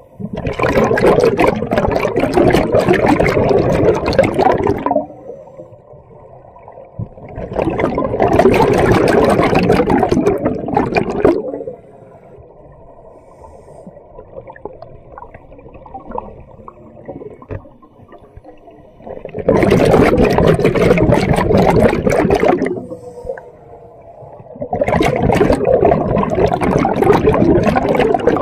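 Scuba diver breathing through a regulator underwater: four long rushes of exhaled bubbles from the regulator exhaust, each lasting a few seconds, with quieter pauses between breaths.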